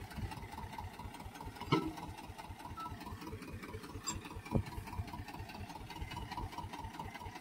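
Swaraj 724 tractor's diesel engine idling with a steady, even chug. Two short knocks come through, one about two seconds in and one about halfway.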